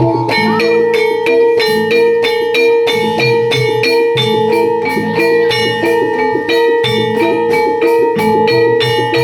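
Javanese jaranan (kuda lumping) gamelan music: struck metal gongs and drum keep an even beat of about three strokes a second under a long held high tone.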